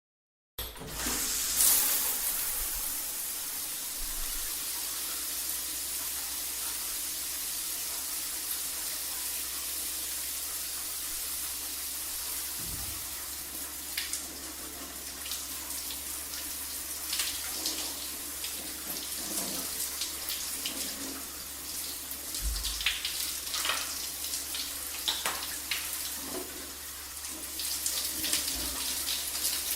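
Shower running: a steady hiss of water spray that starts suddenly about half a second in, with scattered irregular splashes over it.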